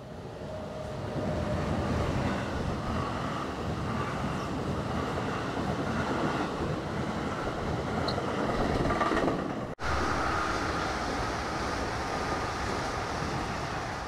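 Double-deck electric commuter train passing on the tracks below, a steady rumble of wheels on rail that swells about a second in and holds as the coaches go by. The sound cuts out for an instant about ten seconds in, then carries on.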